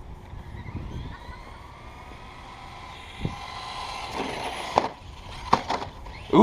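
Electric motor of a Traxxas Slash 2WD RC truck whining as it drives, its pitch gliding up and down with the throttle. There are a few sharp knocks in the second half.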